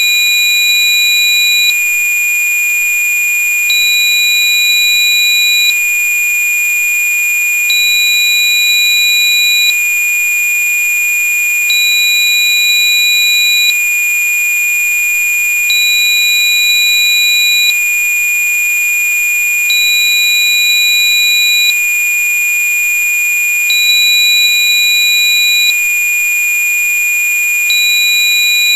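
A synthesized 2435 Hz sine tone for Rife-style frequency therapy, held loud and unbroken. A second, higher tone beeps on and off over it, about two seconds on and two seconds off.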